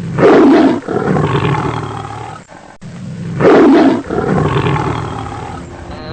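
Lion roaring twice, about three seconds apart, each loud roar trailing off into a quieter, lower rumble.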